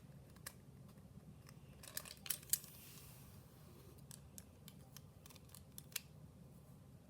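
Small Beyblade parts clicking and clacking as they are handled and fitted together by hand, in scattered sharp clicks with a quick cluster about two seconds in.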